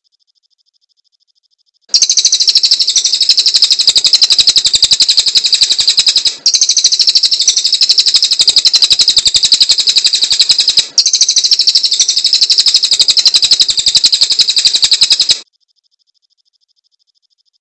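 Cililin songbird singing a loud, very rapid high-pitched chattering trill in three long runs, broken twice by brief pauses. The song starts about two seconds in and stops near the end.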